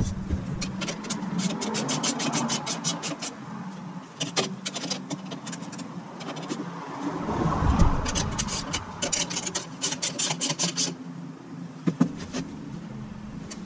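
Hand-tool work on a Honda Grom's rear chain adjuster: three runs of quick metallic clicks, like a ratchet being worked, and a few single knocks near the end, over a steady low hum.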